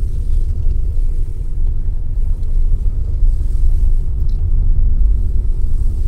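Steady low rumble of a car driving along a narrow mountain road, heard from inside the cabin: engine and tyre noise.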